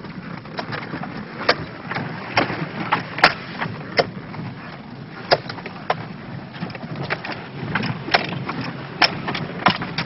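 Toyota Land Cruiser Prado 4x4 driving off-road through mud: a low steady rumble with irregular sharp knocks and clunks, about one or two a second.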